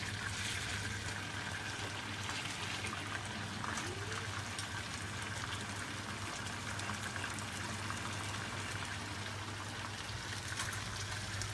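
Thick tuna steak frying slowly in oil in a pan, a steady sizzle with small crackling pops.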